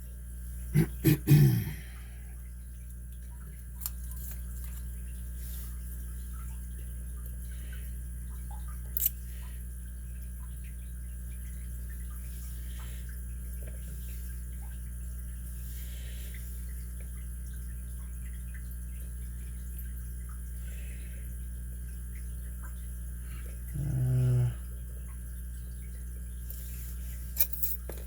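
A few sharp metallic clicks of a Yale lock and its key being handled: a quick cluster about a second in, a single click later and two small ones near the end, over a steady low hum. A short low-pitched sound comes near the end.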